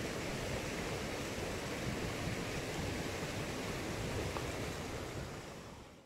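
Steady rush of a small stream cascading over rocks, fading out near the end.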